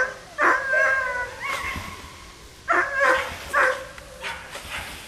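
Tazi sighthound giving high-pitched yelping barks: a short one at the start, a long wavering yelp about half a second in, then a quick run of yelps around the three-second mark.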